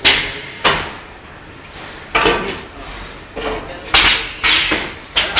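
Semi-automatic starch moulding candy line running, giving a series of sudden sharp knocks and clanks, about eight in five seconds at irregular intervals, each dying away quickly.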